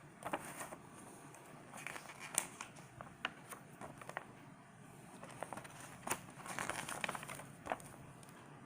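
Paper pages of a booklet rustling and crinkling as they are handled and turned, in several short bouts of crackles.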